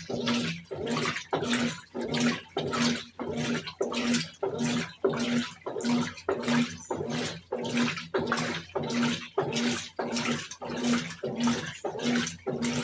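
Brastemp Tira-Manchas Advanced 17 kg top-load washing machine agitating a load of dark clothes on turbo agitation. Water sloshes back and forth in an even rhythm of about two strokes a second, each with a short motor hum.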